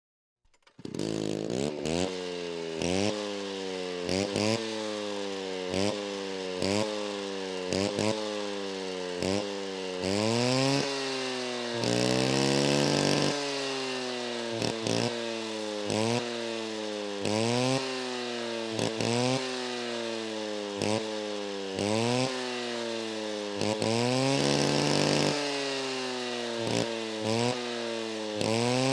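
Chainsaw engine running and being revved over and over: quick throttle blips about every second and a half, each rising in pitch and falling back to idle, with three longer revs held for a second or two. It comes in from silence just under a second in.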